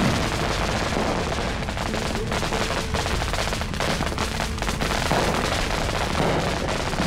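Fireworks crackling: a dense, continuous run of rapid pops with no let-up.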